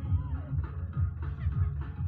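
Bass-heavy dance music with a fast, heavy kick beat, about four beats a second, played through a large sound system during a sound check.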